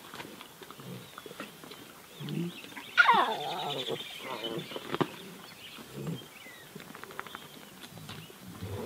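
Lion cub mewing once, loudly, with a call that falls in pitch, about three seconds in. A couple of short low grunts come before and after it.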